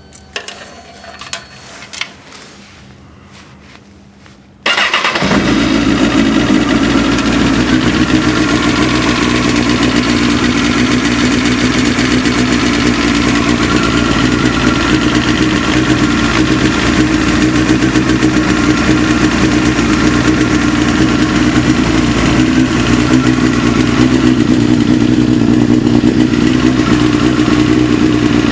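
A few light clicks, then about five seconds in a Honda CBR954RR's inline-four engine starts and idles steadily. It is a cold start of an engine with a knock, which the owner finds grows quieter as the engine warms up and eases slightly with the clutch pulled in.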